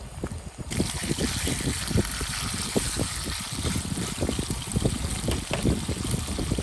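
Bacon sizzling on a nonstick griddle pan: a steady hiss that starts about a second in, with wind buffeting the microphone in irregular low thumps.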